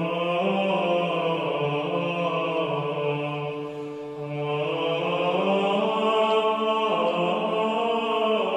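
Slow chant-like choral music, voices holding long notes that move from pitch to pitch, with a short break between phrases about four seconds in.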